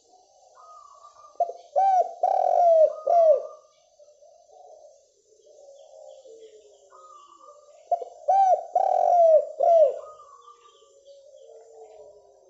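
Spotted dove cooing: two loud song phrases about six seconds apart, each a short run of strong rolling coos, with softer coos in between.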